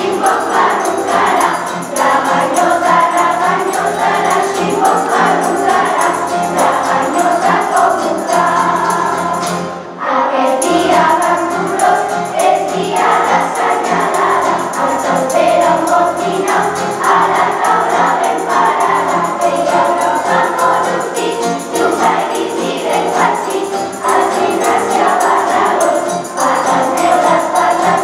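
Children's choir singing a Christmas song with acoustic guitar accompaniment, pausing briefly between phrases about ten seconds in.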